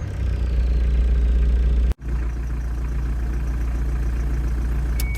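Mitsubishi Delica's 4M40 four-cylinder turbo diesel running. A high turbo whistle falls away in pitch over about the first second as the revs drop, then the engine idles steadily. The sound cuts out for an instant about two seconds in.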